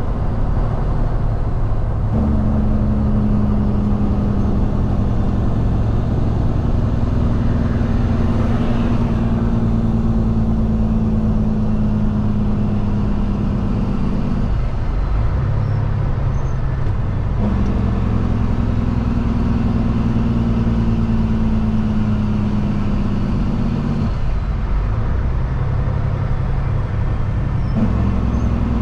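Kenworth W900L diesel engine heard from inside the cab under way, with road noise. Its note sinks slowly in pitch in each gear and breaks off twice, about halfway through and near the end, as the driver shifts the manual gearbox.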